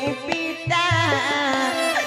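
Accompanying music for Odia folk theatre: a held, wavering melody over repeated hand-drum strokes.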